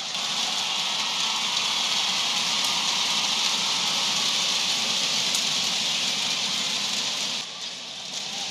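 Arena crowd applauding and cheering steadily after a badminton point, dying down abruptly near the end.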